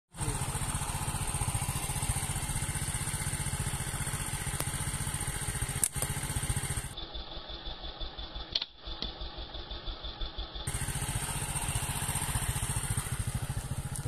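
A small engine running steadily with a fast, even low putter. Two sharp clicks cut through it, one about six seconds in and one a little before the middle.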